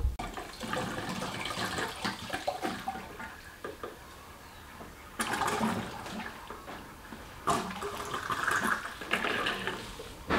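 Diesel fuel being poured into a diesel heater's fuel tank, gurgling and splashing in uneven surges, with louder spells about halfway through and near the end.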